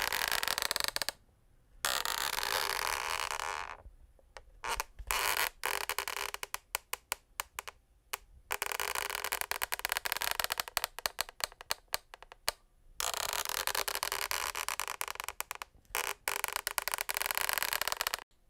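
Wooden parquet floor creaking under weight: long, rasping creaks broken by short pauses, with stretches where the creak breaks up into rapid crackling clicks.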